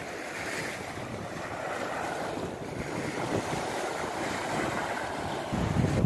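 Sea waves washing steadily, an even hiss of surf. Wind buffets the microphone with low rumbling gusts near the end.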